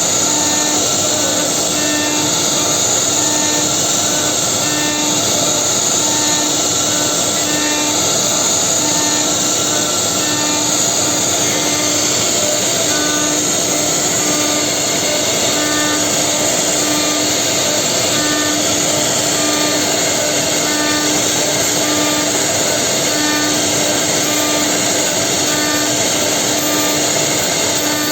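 Holztek HT-R4M four-spindle CNC router milling wood, carving out concave chair seats: a steady, dense cutting noise with a low tone that pulses in an even rhythm.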